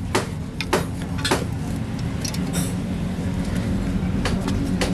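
Three sharp knocks about half a second apart, then a steady low hum with a few lighter clinks and knocks near the end.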